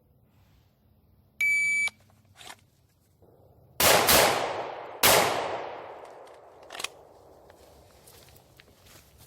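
A shot-timer-style electronic beep, then about two seconds later three gunshots, two close together and a third about a second after, each with a long fading echo.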